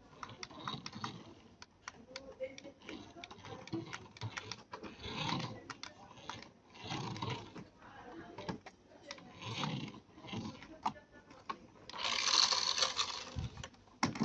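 Hands handling small plastic parts: a string of light clicks and taps, with short rustling scrapes every couple of seconds and a louder, longer rustle near the end.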